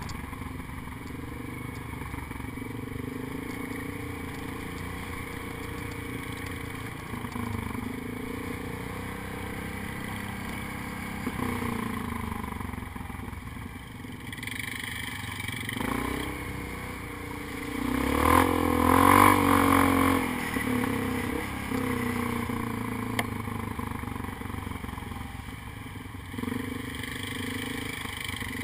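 ATV engine running under changing throttle, heard from the rider's helmet, with a louder burst of revving about two-thirds of the way through.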